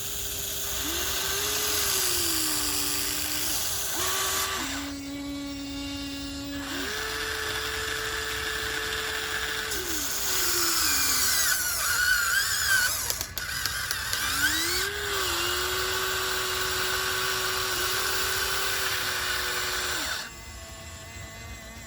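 Small electric motors and gearboxes of a Huina RC model excavator whining as it works. The pitch steps and glides as different functions start and stop and the load changes, with a few rising and falling whines about midway.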